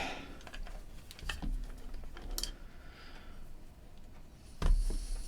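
Scattered small clicks and light rustling of small parts and wire being handled on a workbench, with a louder knock about four and a half seconds in.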